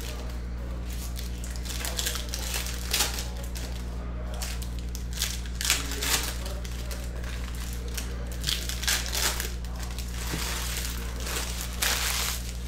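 Foil trading-card pack wrappers crinkling and tearing as packs are ripped open by hand, in short irregular crackles over a steady low hum.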